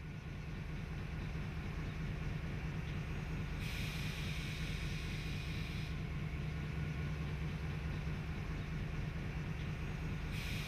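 Victorian Railways Y-class diesel locomotive Y159 idling with a steady low engine hum. A hiss of air comes in for about two seconds about four seconds in, and again near the end.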